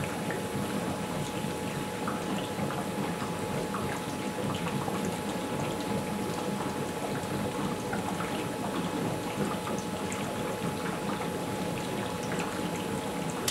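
A 144-plate HHO electrolysis cell making gas at about 78 amps, a steady fizzing and bubbling as the gas rises through the water, with many small scattered pops. A steady thin tone runs underneath.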